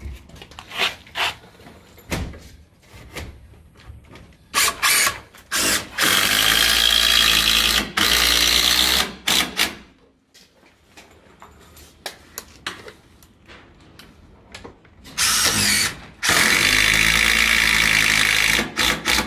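Cordless DeWalt drill driving screws through a 50 mm AAC panel into the battens: a few short trigger blips, then long steady runs of a couple of seconds each, one spell around six to nine seconds in and another from about fifteen seconds in to near the end.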